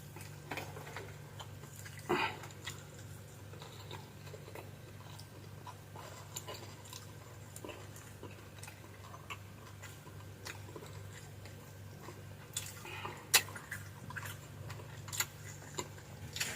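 A person eating close to the microphone, most likely fried fish: chewing and small mouth and utensil clicks, with a few sharper clinks, the loudest about thirteen seconds in. A steady low hum runs underneath.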